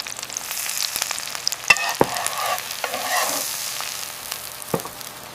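Food sizzling in a frying pan, a steady crackling hiss, with a few sharp clicks of a utensil against the pan.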